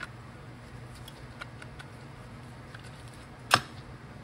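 Steel automatic-transmission clutch parts being handled on a workbench: a few faint light ticks and one sharp metallic clack about three and a half seconds in.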